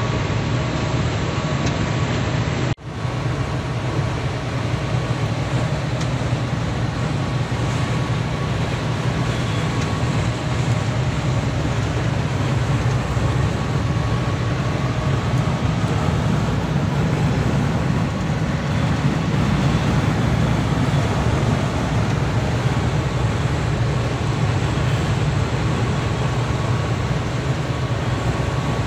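Steady low drone of a diesel truck cruising at highway speed, heard inside the cab, with engine, tyre and wind noise blended together.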